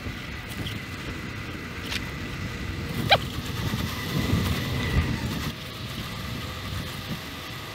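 BMX bike rolling on an asphalt path: tyre rumble and wind buffeting the microphone. A single sharp clink about three seconds in, and the rumble swells for a second or so after the four-second mark.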